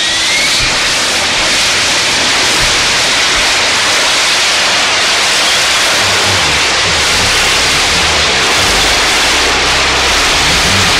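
Loud, steady rushing noise like static, strongest in the upper middle. A rising tone fades out right at the start, and low pulsing notes come in underneath about six seconds in.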